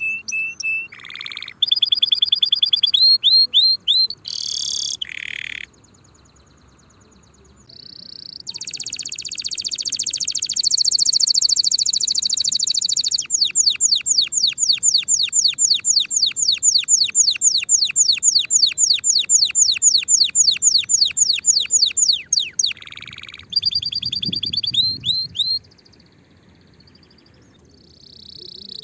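Domestic canary singing: varied phrases of quick falling whistles and trills, including a long rolling trill of repeated falling notes at about six a second in the middle, with brief pauses twice.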